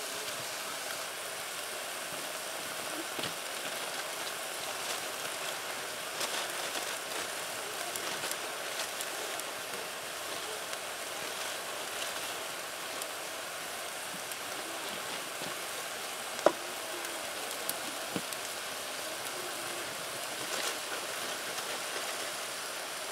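Chopped civet meat sizzling in a pot over a wood fire: a steady frying hiss, with scattered sharp clicks and crackles, the loudest about 16 seconds in.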